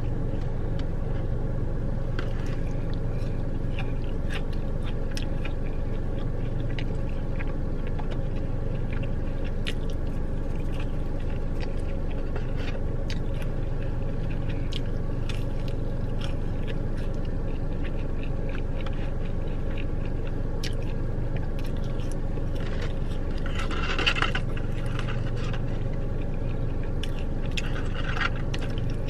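A person chewing and biting food close to the microphone, with small wet clicks and crunches, over a steady low hum.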